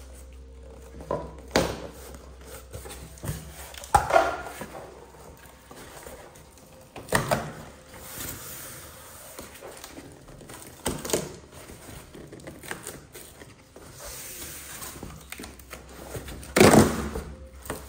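Cardboard box flaps and polystyrene foam packing being handled and pulled open, in several separate scraping and knocking bursts, the loudest near the end.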